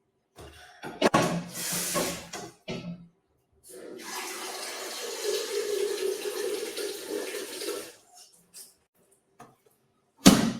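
Warm water running into a cup for about four seconds, with a steady rushing sound, after a few seconds of clattery handling. A single sharp knock comes near the end.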